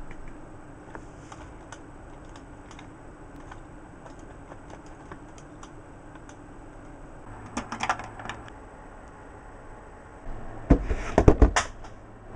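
Scattered light clicks and handling clatter over a faint steady hum, with a cluster of louder clicks about eight seconds in and heavier knocks and clatter near the end.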